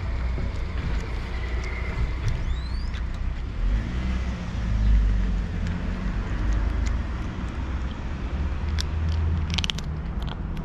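A cat crunching dry kibble, with a few short crisp clicks that are densest near the end, over a steady low outdoor rumble.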